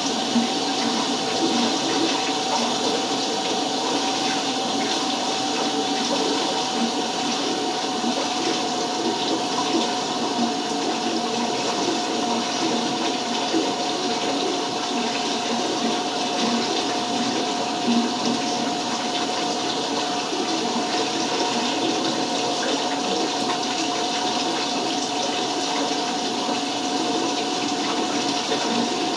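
Water running steadily while hair dye is rinsed out of hair, with a faint steady tone through the rush of water.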